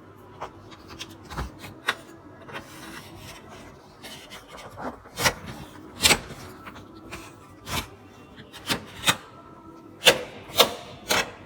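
Hands working on the inside of an all-in-one PC: irregular clicks, taps and scraping rubs of plastic and metal parts handled during an M.2 drive swap, with a few sharper knocks about halfway and near the end.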